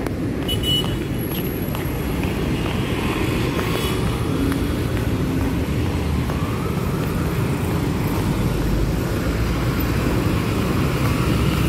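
Steady road traffic noise from cars passing on a busy city street.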